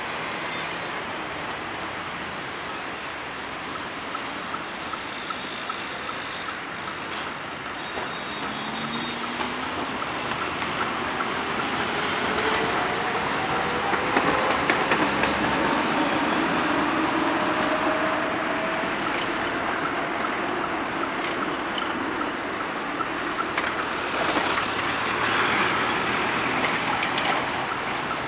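Tram, a double-ended rail-grinding service car, passing with its traction motors giving a slowly rising whine as it pulls away over city traffic noise. Loudest about halfway through as it passes close.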